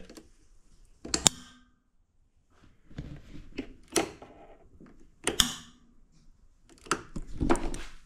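The ignition key switch is turned and the train horn's 12-volt air solenoid valve clicks as it fires, several sharp clicks spread out with quiet between. The solenoid is opening on only about 0.06 volts leaking into the fuse box from the switch panel, a wiring fault.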